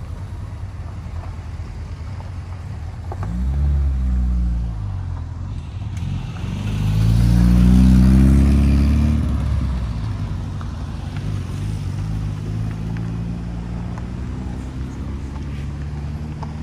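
Car engines as cars drive out. One briefly revs about three seconds in, then a louder car accelerates past in the middle, its engine pitch rising and then falling, and a lower engine note carries on after it.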